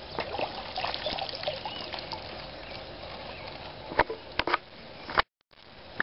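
A hooked tilapia splashing and dripping as it is hauled out of the water on a handline, followed by a few sharp knocks as the flapping fish is handled. The sound cuts out briefly near the end.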